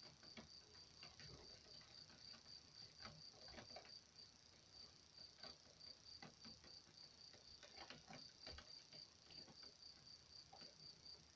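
Near silence: a cricket chirping faintly and steadily in a high, evenly pulsed tone, with scattered faint clicks and taps from glassware being handled while potassium metabisulfite is dissolved in water.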